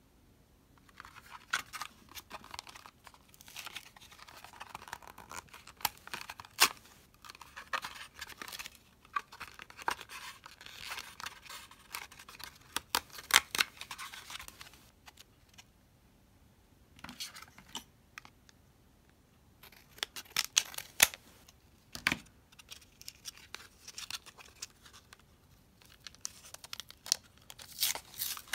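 Cardboard blister card of lip balms being torn apart by hand, with the plastic blister packs crackling and clicking, in several bursts with short pauses between them.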